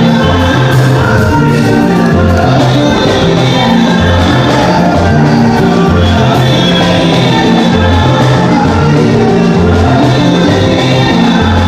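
Upbeat music with a steady beat, a stepping bass line and singing.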